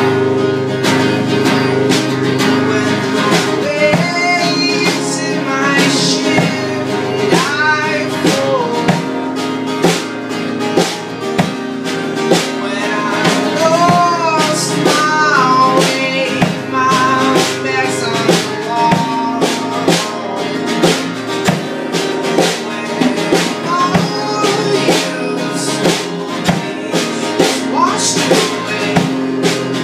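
Acoustic guitar and drum kit playing an instrumental passage of a song, with a melody that bends in pitch over steady held chords; the drum strokes come more often in the last few seconds.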